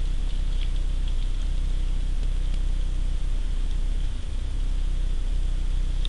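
A steady low hum, unchanging, with a few faint light ticks scattered over it.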